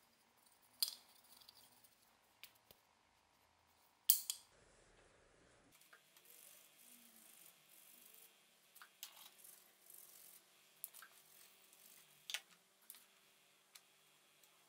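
Quiet handling noise at a workbench. Wooden knife-handle scales and small metal rivet pins click against each other, with two sharp clicks in the first few seconds. Later come scattered lighter clicks and some soft rubbing as the parts are wiped and set down.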